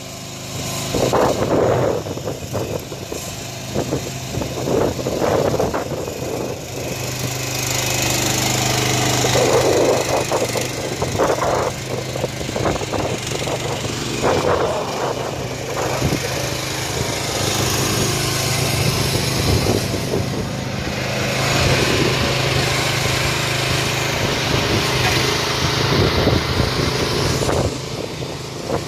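The small engine of an AGROTK QH12 mini excavator running steadily, with a higher hiss coming and going in stretches as the hydraulics move the boom, arm and bucket.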